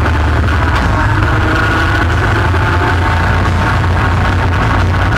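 ATV engine running at a steady pace while riding, with a constant low drone and a steady higher whine, and wind buffeting the microphone.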